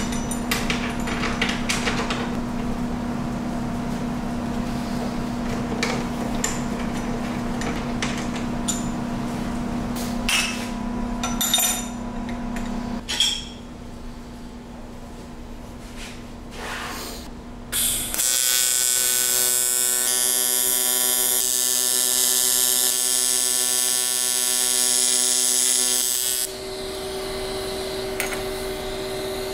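TIG welder's arc buzzing steadily on a small aluminium bracket from a little past halfway until a few seconds before the end. Before it come scattered clicks and knocks of hand tools over a steady hum.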